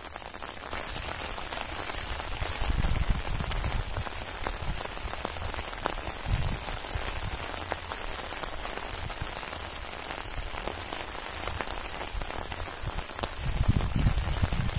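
Steady rain falling, an even hiss of many small drops, with a few low rumbles about three seconds in, around six seconds and again near the end.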